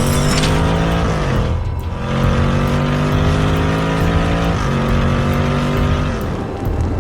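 A vehicle engine sound effect revving up, its pitch climbing steadily and dropping back twice, like gear changes, with background music underneath.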